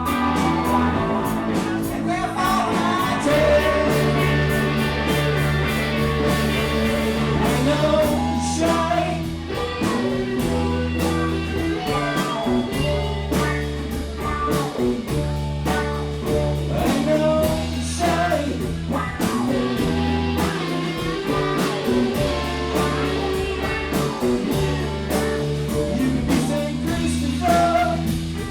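Live blues-rock band playing: slide guitar with gliding notes over electric lead guitar, bass guitar and a steady drum beat.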